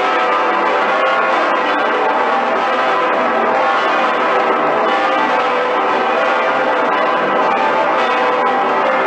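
Full peal of Cologne Cathedral's swinging bells, the St. Peter's Bell and Pretiosa among them, ringing together. Many bells' strokes overlap continuously at a steady level, with no pause.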